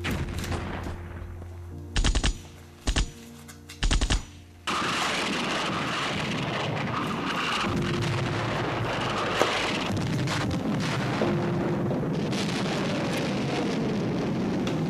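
Recorded battle sounds: three short bursts of gunfire about two, three and four seconds in, then continuous crackling machine-gun fire.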